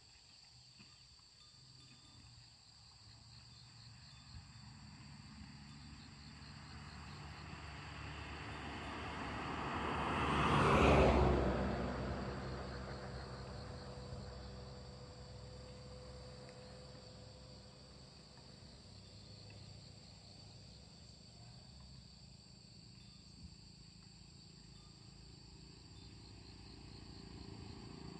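Steady chorus of insects over a rural field, with a vehicle passing on the road: it swells gradually, peaks about eleven seconds in, then fades away. Near the end a motorbike approaches and grows louder.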